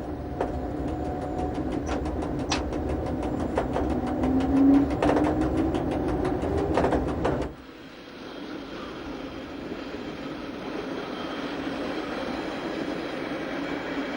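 Berner Oberland Bahn electric train running along the track: rapid, regular clicks of wheels over rail joints under a steady rumble, with a whine rising in pitch from about four seconds in. About seven and a half seconds in, the sound changes suddenly to a softer, steadier running noise.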